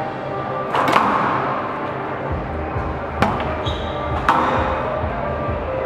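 Squash ball smacking off rackets and the court walls during a rally: three sharp hits, about one, three and four seconds in, over a steady hall background.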